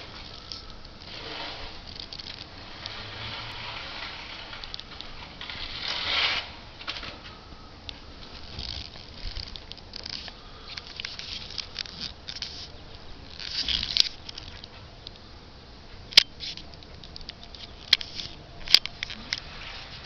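Falling snow pattering softly and unevenly, with a light crackle and a few sharp ticks in the last few seconds.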